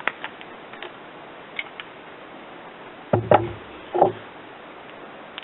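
Hand tools and sockets being handled: a few light clicks, then two louder knocks about three and four seconds in.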